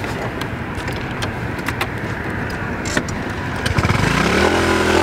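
Motor scooter engine running at a low idle, then revved up near the end, its pitch rising and holding higher and louder as it pulls away.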